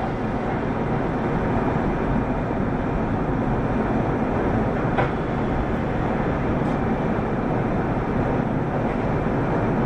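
Mitsubishi Fuso PDG-AA273KAN city bus under way: steady diesel engine and road noise, with a faint click about halfway through.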